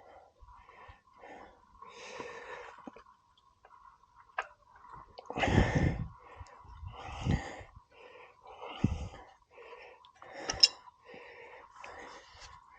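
A man breathing hard with straining exhales, one every second or two, as he levers a rim-straightening tool to bend a dented motorcycle front rim back into true. A sharp click comes about ten and a half seconds in.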